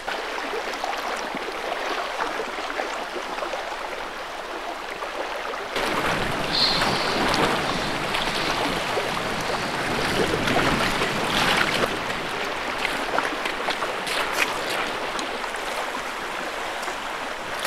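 Steady rush of a flowing creek's water, with no speech; the water sound changes and grows fuller about six seconds in.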